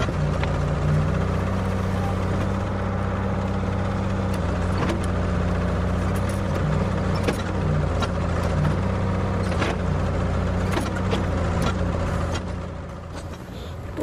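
Ford 555C backhoe's engine running steadily under hydraulic load as the bucket digs in beside a pine to break up its roots, with scattered sharp clicks and clunks. The engine eases off and grows quieter shortly before the end.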